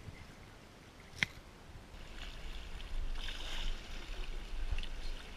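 Shallow seawater splashing and lapping in the shallows at the shoreline, building up from about two seconds in, over a steady low rumble. A single sharp click sounds about a second in.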